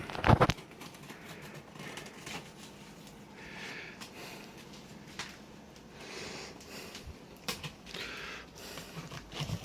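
Cardboard box being handled: a couple of knocks as it is set down or gripped, then scratchy rustling and scraping on the cardboard in a few short stretches.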